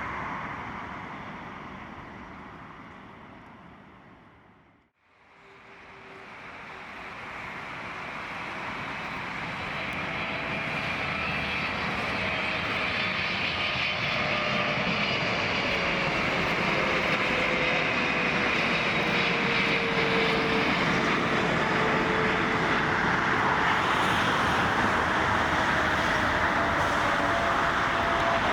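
Jet noise from a Boeing 777 fades out to silence about five seconds in, then an arriving Boeing 777's engines grow steadily louder, with a whine sliding slowly down in pitch.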